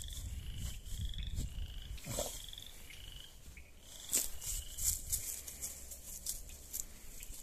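A boxer dog snuffling rapidly with its nose pushed into dry leaves, sniffing after a squirrel. The snuffling is strongest over the first couple of seconds; a few sharp crackles of dry leaves follow about four to five seconds in.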